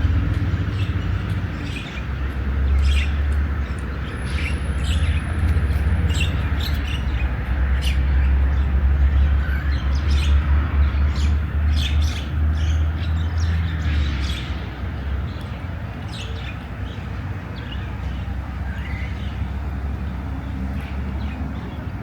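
Songbirds chirping and calling, many short calls throughout, over a strong low rumble that eases after about fifteen seconds.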